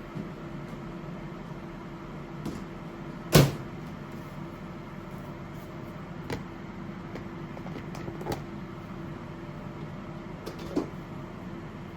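Kitchen work over a steady appliance hum: a few light clicks and taps, and one loud, short knock about three and a half seconds in, like a cupboard door or a utensil set down hard.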